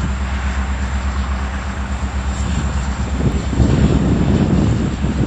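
Empty covered hopper cars of a freight train rolling past on the rails over a steady low hum. About three seconds in, a louder, rougher low rumble sets in.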